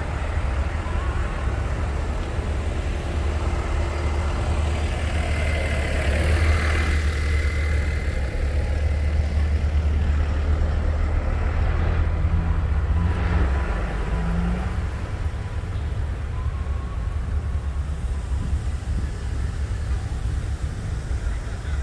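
Steady low rumble of car and truck engines and road noise from a slow-moving line of vehicles; the rumble eases a little past halfway.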